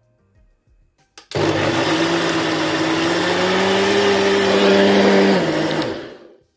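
Countertop blender motor switching on with a click about a second in and running steadily, blending chunks of watermelon, mango, pineapple and melon into juice; its pitch rises slightly as it runs, then it winds down and stops near the end.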